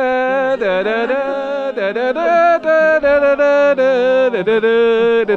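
One voice singing a song in long held notes that bend and slide between pitches.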